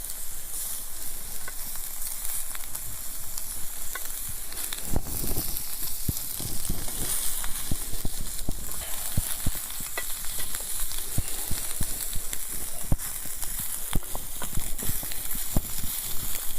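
Food sizzling in a small frying pan over a campfire: a steady hiss of frying fat with many small pops and crackles, which come more often from about five seconds in.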